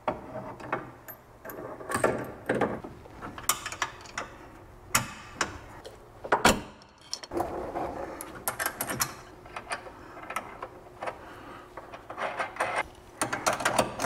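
Metal hardware clinking and knocking as a bolt, washers and spacers are worked into a Panhard bar rod end and its bracket, with one louder knock about halfway through. Near the end a ratchet wrench clicks in quick runs on the bolt.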